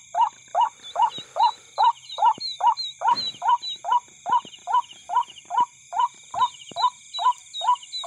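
A loud call repeating evenly about two and a half times a second, over steady high-pitched insect trilling, with small high chirps in between.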